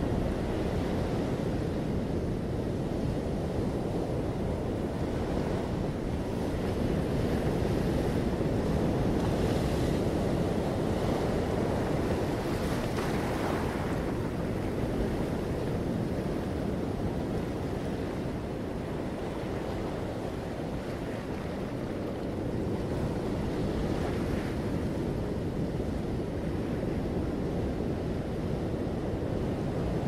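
Ocean surf washing over a rocky shore: a steady rushing wash with a few louder swells of hiss as waves break, and wind rumbling on the microphone.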